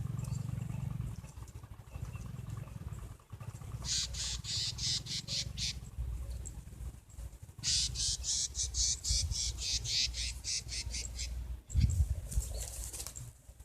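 Bar-winged prinia (ciblek) calls: two bouts of fast, evenly repeated high chirps at about five notes a second, the second bout longer. A low rumble runs underneath, and a dull thump comes near the end.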